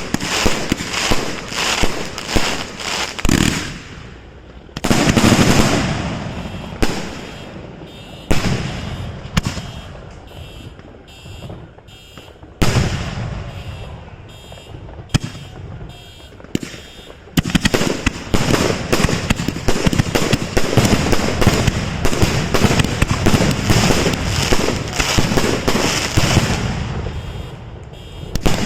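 Fireworks going off: a steady run of sharp bangs, with sudden louder booms about five, eight and twelve seconds in, then a long dense stretch of rapid-fire reports from about seventeen seconds on that thins near the end.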